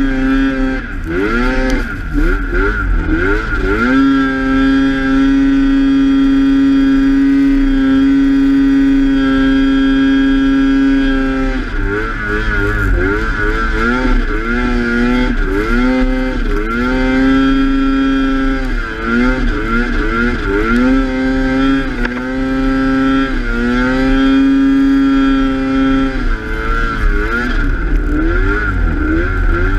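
Snowmobile engine running hard through deep powder. Its pitch holds steady at high revs for several seconds, then rises and falls again and again as the throttle is worked, over a constant high whine.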